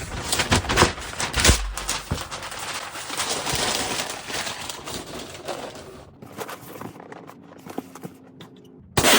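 Packing paper crumpling and rustling as it is stuffed into a cardboard shipping box as void fill, busy crackling for about six seconds, then quieter handling noises.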